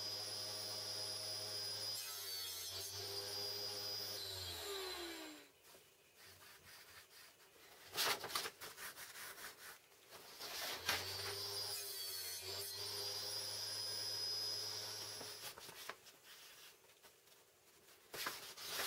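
Table saw motor running with a steady hum and whine, then winding down about five seconds in. Paper sheets rustle as they are handled, the motor runs again from about eleven seconds and winds down about four seconds later, and more paper rustling follows near the end.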